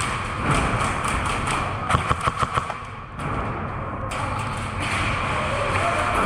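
Airsoft gun firing a short rapid burst of about seven shots, about two seconds in, over steady background noise.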